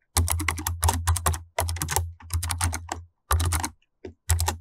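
Computer keyboard typing: quick runs of key clicks, pausing briefly a little before the end and then a short final run.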